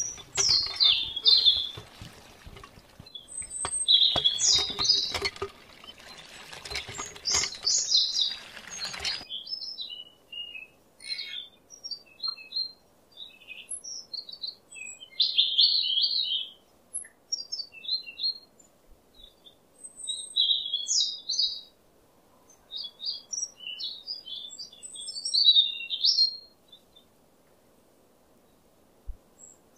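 Small birds chirping and twittering in short, high, quick calls throughout. For about the first nine seconds a dense pattering, crackling noise runs beneath them and then cuts off abruptly.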